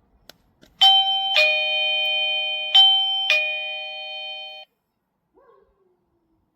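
Electronic chime of an eufy E340 video doorbell: a two-note ding-dong played twice, the notes ringing on and then cutting off suddenly.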